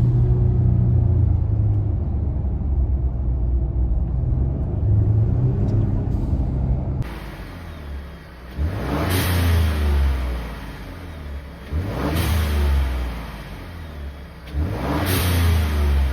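Twin-turbo 3.5 L EcoBoost V6 of a Ford F150, with a blow-off valve adapter fitted, first holding a steady low drone. About seven seconds in the sound changes, and the engine is revved three times. Each rev is followed by a short whoosh of boost air venting past the adapter as the throttle closes.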